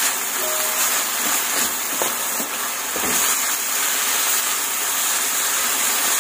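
Diced pork sizzling in oil in a nonstick frying pan, with a spatula stirring it.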